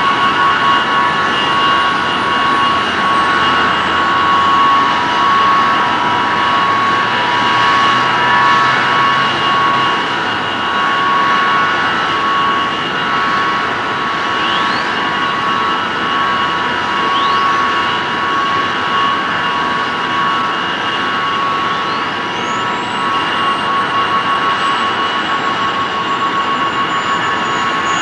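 DC-8 jetliner's jet engines running loud and steady, with a high turbine whine over the rush of exhaust. A few short high whistles sweep upward in the middle, and about three-quarters through a high whine climbs sharply and then slowly sinks.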